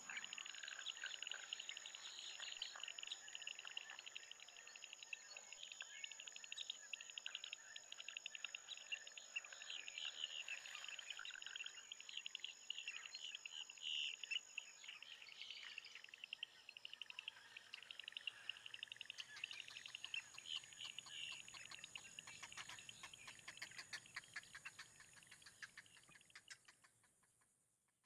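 Nature ambience of many small birds chirping and calling over a steady high insect drone. A run of quick ticking comes in during the last third, and the whole sound fades out just before the end.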